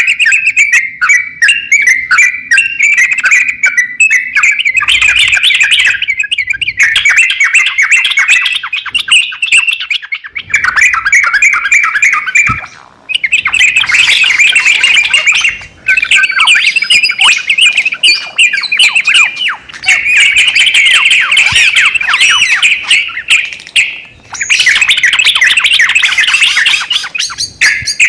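A crokcokan songbird in full song: a loud, rapid chattering warble of quick notes, sung in long phrases broken by a few short pauses.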